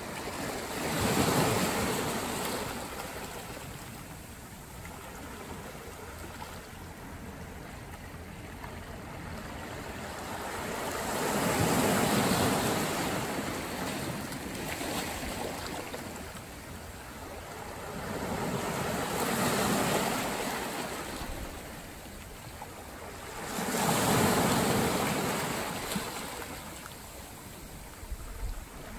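Ocean surf: four waves break in turn, the last two close together, each swelling up and falling back into the steady hiss of washing water.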